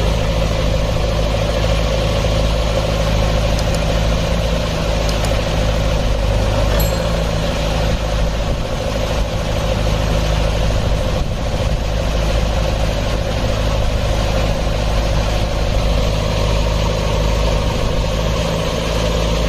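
Diesel engine of a JCB 3DX backhoe loader idling steadily, with no revving.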